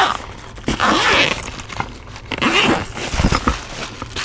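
Zipper on the Hot Logic Mini's fabric carry case being pulled open around the lid in several rasping strokes, with the insulated case rustling as it is handled.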